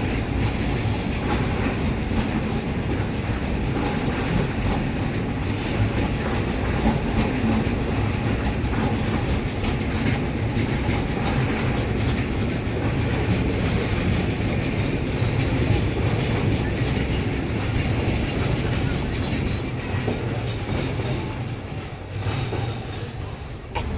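Train rolling past at close range: a steady rumble of wheels on rails with clickety-clack over the rail joints, easing slightly near the end.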